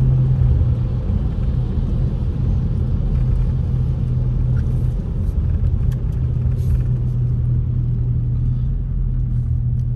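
Steady low rumble of a car driving on a wet road, heard from inside the cabin: engine hum and tyre noise.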